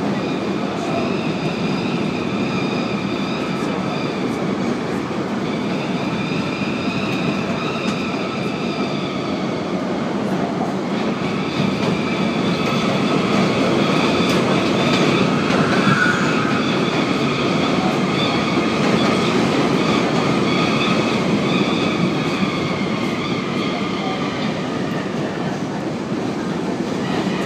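R32 subway car running at speed across the Williamsburg Bridge, heard from inside: a steady rumble of wheels on rail, with a high metallic whine in several tones. The whine drops out about ten seconds in and comes back. The noise grows louder through the middle, as another train passes close by on the next track.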